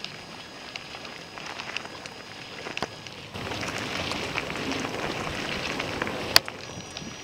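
Water splashing and hissing from the paddle strokes and wake of a flat-water racing kayak passing close. It grows louder about three seconds in, and there is a sharp click near the end.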